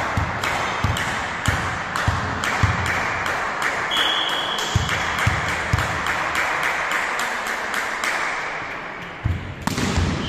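Volleyball play in an echoing sports hall: the ball is bounced, struck and slapped several times a second, with sharp knocks and low thuds on the wooden floor. A short steady high whistle tone comes about four seconds in, and a loud hit near the end.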